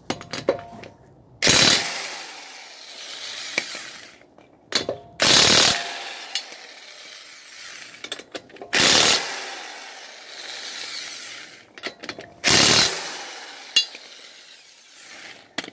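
Milwaukee impact wrench with a 21 mm impact socket, hammering lug nuts loose off a car wheel in four short bursts about three and a half seconds apart.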